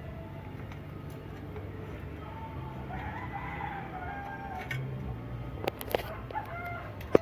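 A rooster crowing, long bending calls, with several sharp clicks near the end.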